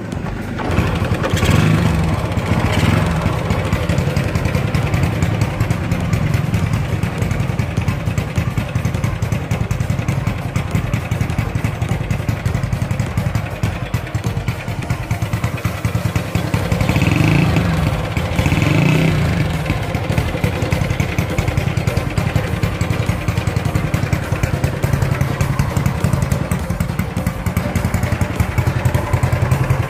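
Honda C70's small single-cylinder four-stroke engine running at idle, with a brief burst of throttle a couple of seconds in and two short revs about two-thirds of the way through.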